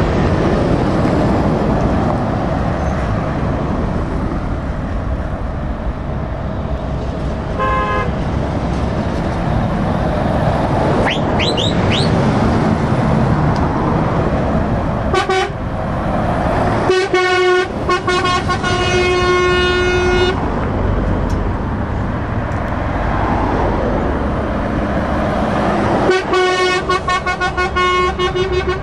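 Lorries and cars passing in steady traffic, with engine and tyre noise throughout, and truck horns sounding over it: a short toot, a few quick rising whistles, a brief blast, then a long blast of about three seconds and another of two to three seconds near the end.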